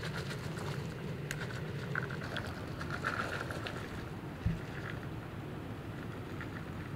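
Chopped cauliflower, carrot and celery pieces pattering and clicking as they are poured from a plastic basket onto a cloth, with one dull thump about halfway through.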